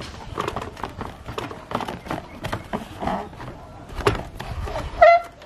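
Corrugated plastic sheets and a plastic bucket handled during assembly: scattered clicks, taps and rustling. Near the end there is one short pitched call, the loudest sound.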